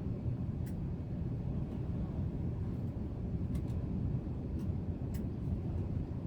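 Steady low rumble of an airliner cabin in flight, with a few faint clicks.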